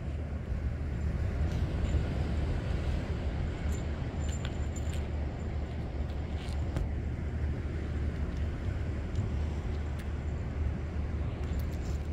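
Steady low rumble of outdoor background noise, with a few faint light clicks scattered through it.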